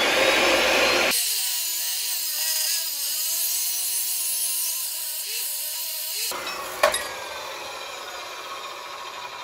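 Abrasive chop saw cutting quarter-inch-wall steel square tubing: the motor starts sharply, then grinds steadily through the steel with its pitch wavering and dipping under load. About seven seconds in there is a sharp click and the saw winds down.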